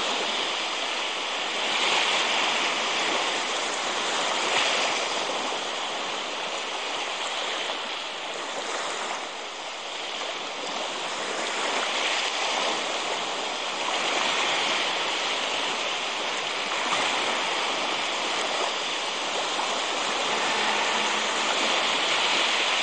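Steady rushing water, a continuous hiss that swells and eases slightly every few seconds.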